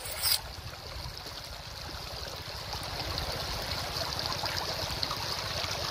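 Shallow river water streaming and trickling over rocks, with a hand splashing in a flooded hole in the rock; a short sharp sound comes near the start, and the water hiss grows a little louder toward the end.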